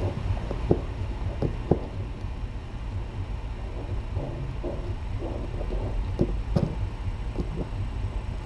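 A steady low rumble of room noise with a few soft knocks scattered through it, two close together near the start and two more about two-thirds of the way in.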